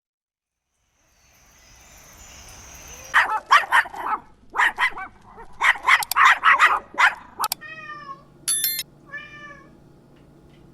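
An animal calling: groups of short, rapid cries starting about three seconds in, followed by two longer pitched calls near the end.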